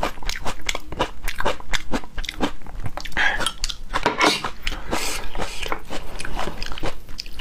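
Close-miked crunchy chewing of crisp, raw golden thread melon (spaghetti squash) strands: a steady run of short crunches, two to three a second, with a longer rustling stretch around the middle.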